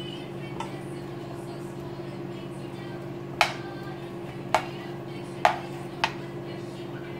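A plastic spatula knocks against a nonstick frying pan four times, about a second apart, while stirring chopped onions and garlic. A steady low hum runs underneath.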